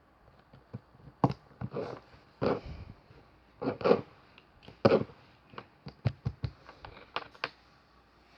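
Hands working small craft materials at a table: irregular taps, clicks and short scraping or rustling strokes, with a quick run of clicks in the second half.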